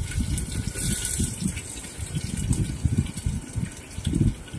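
Chopped onions scraped from a steel plate into hot oil, sizzling as they start to fry, with low knocks and bumps from handling.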